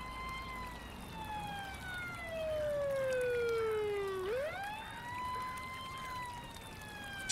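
A wailing siren: its pitch slides slowly down, sweeps quickly back up a little after four seconds in, holds briefly and slides down again.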